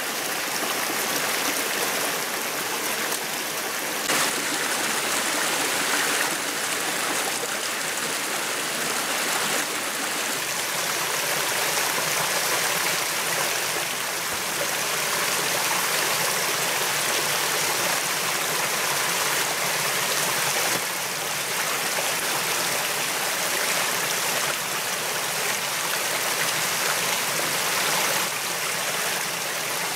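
Steady rushing of a forest stream, with one brief knock about four seconds in.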